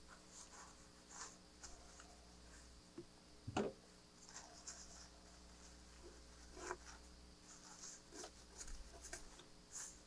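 Faint scratching and rustling of a paper towel as a small metal contact from an old toggle switch is rubbed clean of black grime by hand, with a soft knock a little over a third of the way in.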